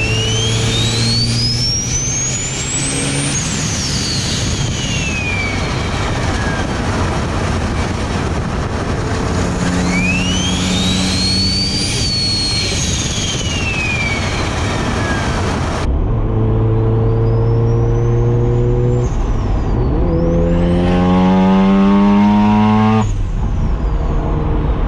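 Single BorgWarner turbocharger on a Mazda RX-7 FD's rotary engine whistling as it spools up, rising high and falling away twice over the engine's drone. Later the engine note climbs steadily under acceleration.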